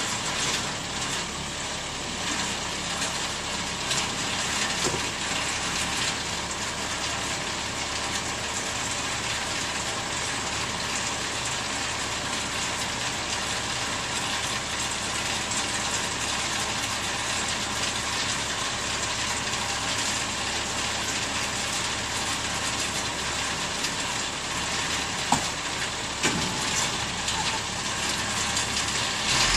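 Engine of a parked medium-duty roll-off truck idling steadily.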